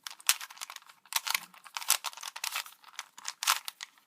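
Plastic Rubik's Cube layers being twisted by hand: a fast, uneven run of clicks and clacks, several a second.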